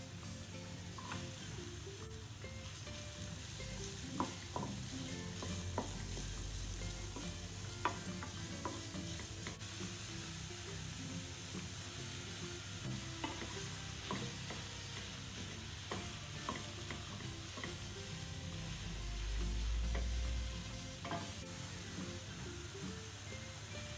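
Diced onion and shiitake mushrooms sizzling in oil in a metal frying pan, stirred with a wooden spatula that scrapes and clicks against the pan. A steady hiss runs under scattered clicks, with a couple of dull low thuds.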